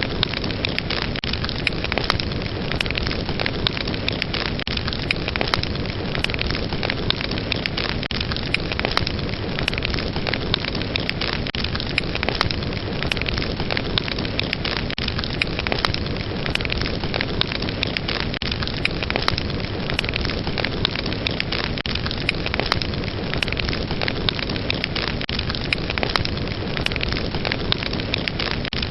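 Wood fire burning steadily with a dense run of crackles and sharp pops.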